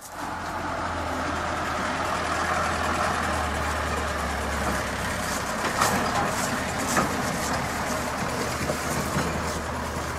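A car engine running, with a steady low hum under a loud rushing noise for the first few seconds and a few sharp knocks later on.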